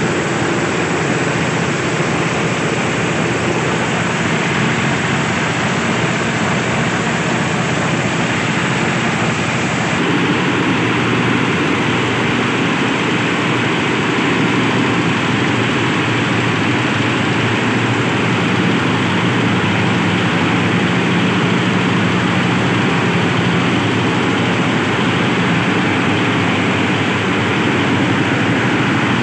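Compost chopper running steadily as it shreds compost. About ten seconds in, the sound switches to a rotary trommel compost sieve running steadily with its drum turning.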